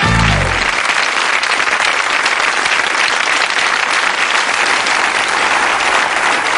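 Studio audience applauding steadily. The last chord of the theme tune dies away within the first second.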